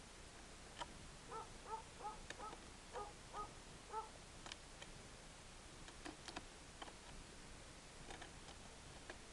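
A bird giving about eight short calls in quick succession, followed by a few scattered faint clicks.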